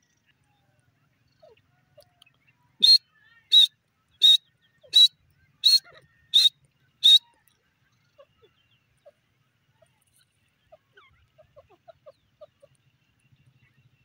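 Female grey francolin calling: seven sharp, high calls in an even series, about three every two seconds. In the latter part come a few faint, soft low notes.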